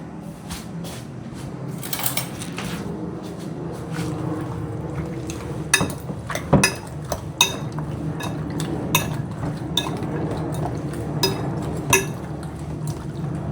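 Kitchenware clinking and knocking while raw chicken feet are seasoned and mixed in a bowl or pot: scattered sharp clinks, more frequent in the second half, over a steady low hum.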